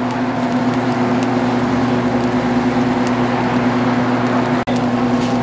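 Steady electrical hum of a convenience-store induction ramen cooker running at the boil, under the hiss of the boiling broth. The sound cuts out for an instant near the end.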